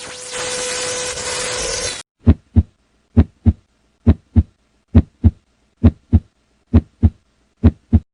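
A steady rushing noise for about two seconds that cuts off suddenly, then a heartbeat: seven slow double beats (lub-dub), one pair a little under every second.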